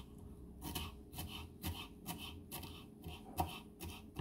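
Kitchen knife chopping fresh cilantro on a wooden cutting board as the herb is minced fine: faint, uneven taps, about three a second.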